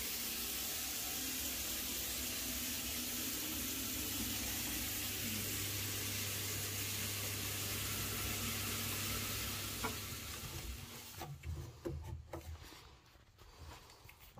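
Steady hiss of running water, most likely a hot tap left open, that dies away about ten seconds in, followed by a few light clicks.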